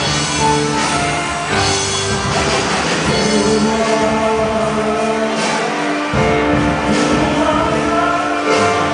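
A band playing a song with a singer, the voice holding long notes over the instruments.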